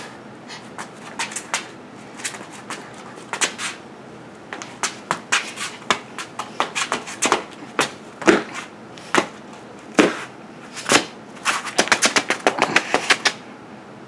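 A child's sneakers stamping, tapping and scuffing on a bare concrete floor as she dances: irregular sharp taps and thumps that come quicker near the end.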